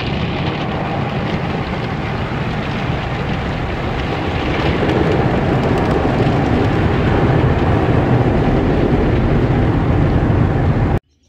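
Automatic car wash heard from inside a truck cab: cloth brushes scrubbing over the windshield and water and soap spraying on the glass, a loud steady rush of noise. It stops abruptly near the end.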